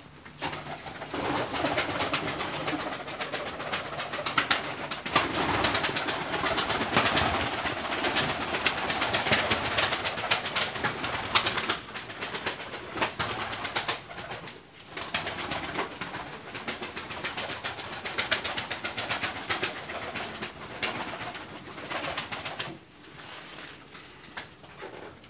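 Pigeons flapping their wings and cooing in a loft, a dense flutter of wingbeats that dies down near the end.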